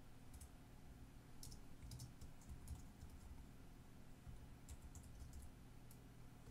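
Faint computer keyboard typing: short clusters of keystrokes with pauses between them, over a faint low steady hum.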